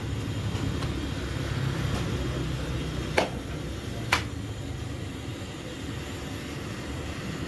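Steady low rumble of roadside street-stall ambience, with two short sharp knocks about a second apart a little past the middle.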